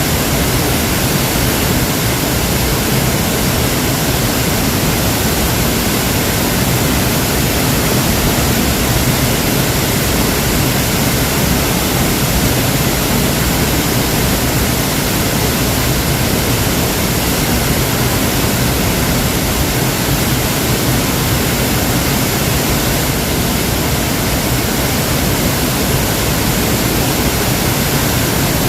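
Waterfall: a steady, loud rush of falling water with no change throughout.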